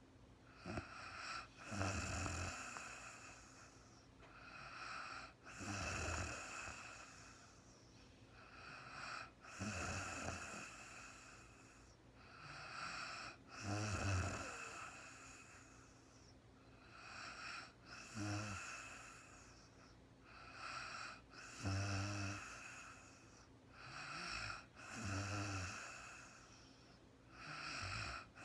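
A woman snoring in her sleep: slow, even breaths with a low rattling snore, one about every four seconds.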